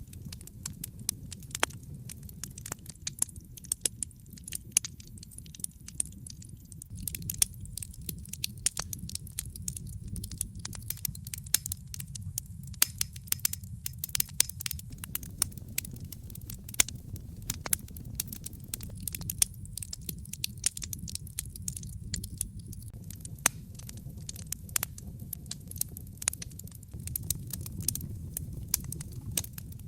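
Wood fire crackling, with frequent irregular pops and snaps over a low, steady rumble of the burning fire.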